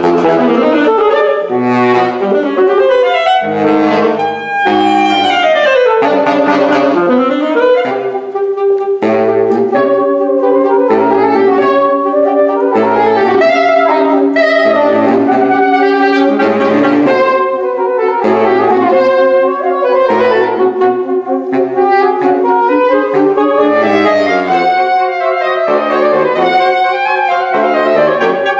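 Saxophone quartet of soprano, alto, tenor and baritone saxophones playing a contemporary concert piece: long-held upper notes over short, repeated low baritone notes.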